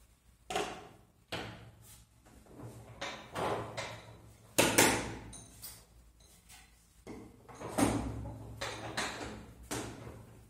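A series of irregular wooden knocks and clunks as a hand brace, auger bits and a pine board are handled and set down on a wooden workbench, the loudest knock about halfway through.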